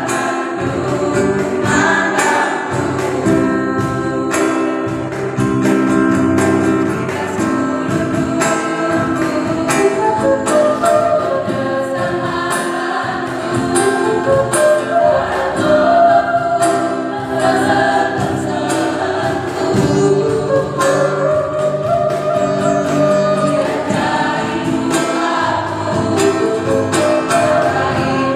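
A church choir, mostly women's voices, singing a Karo-language gospel hymn into microphones, accompanied by an acoustic guitar.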